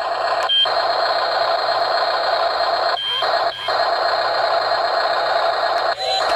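Breaker hammer on a Double E 1:16 RC excavator buzzing steadily against ice, stopping briefly four times.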